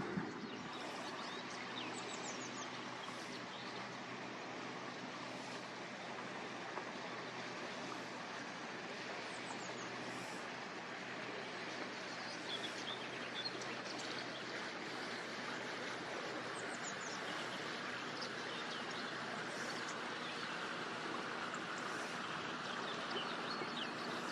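Riverside outdoor ambience: a steady background wash with a faint low hum under it, and birds chirping briefly every few seconds.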